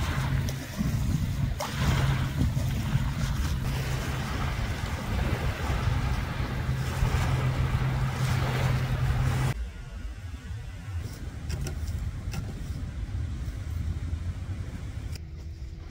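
Small waves washing onto a sandy beach, with rough outdoor noise and a steady low hum under it. About ten seconds in, the hum and most of the noise stop abruptly, leaving a quieter outdoor background with a few faint ticks.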